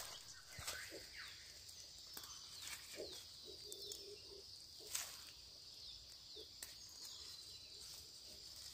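Steady high-pitched insect buzz with faint short chirps, broken by a few sharp snaps and rustles of leafy greens being picked by hand. The loudest snap comes about five seconds in.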